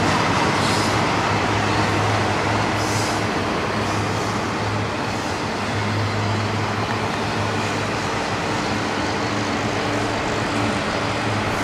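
Double-stack container train passing: steady noise of its cars' steel wheels running on the rails, with a low steady hum underneath.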